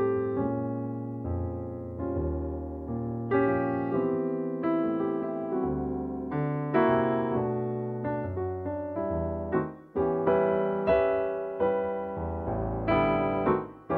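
Solo piano music playing slow chords and melody, each note struck and left to die away.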